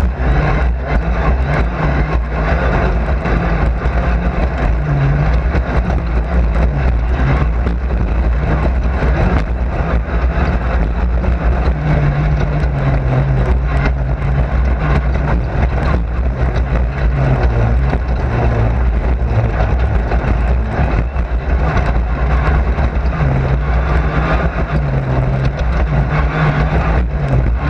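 Race car engine heard from inside the car, running hard with its note rising and falling as it is driven around the track, over heavy road and drivetrain noise with frequent rattles and knocks from the car.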